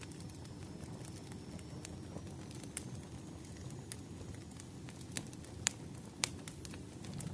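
Wood fire burning, with a steady low rumble of flames and irregular sharp crackles and pops. The loudest pops come a little past halfway through.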